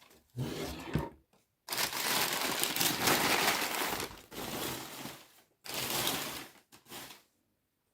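Newspaper packing crumpling and rustling as an item is pulled out of a box, in several bursts, the longest and loudest from about two to four seconds in.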